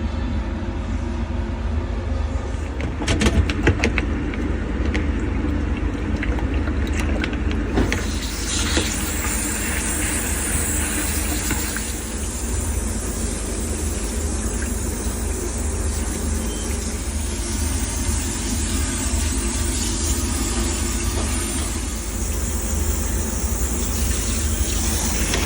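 HVAC unit running noisily with a steady low rumble. A run of sharp rattling clicks comes about three to four seconds in, and a louder hiss joins from about eight seconds on.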